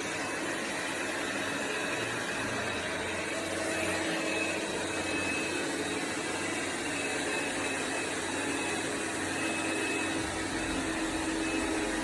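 Dreame robot vacuum running with a steady whirring motor and a faint hum.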